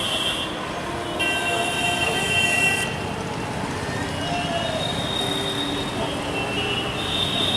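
Strong gusty wind buffeting the microphone, with steady high whistling tones over it that come and go, strongest from about one to three seconds in.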